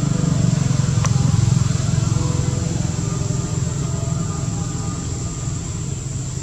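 Low rumble of a motor vehicle's engine running, loudest about a second and a half in and then easing off slightly, with a single sharp click about a second in.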